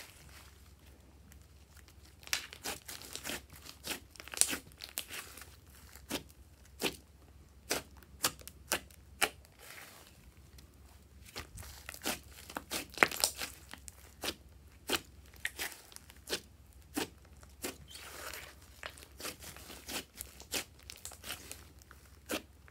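Glossy slime being squeezed and stretched by hand, giving irregular sharp pops and crackles.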